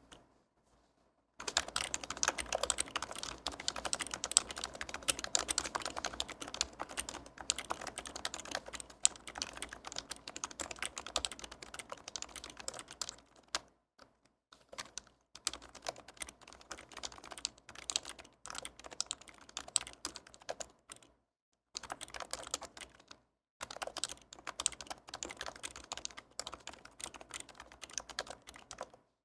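Fast continuous typing on an HHKB Pro 2 keyboard, its Topre switches silenced with Hypersphere rings and left unlubed: a dense patter of keystrokes. It starts about a second in and breaks off briefly a few times.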